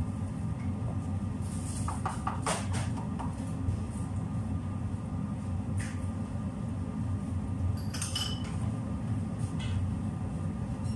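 Kitchen clatter: a wooden spatula and pots knocking and clinking a few times, clustered about two seconds in and again near six and eight seconds, over a steady low hum.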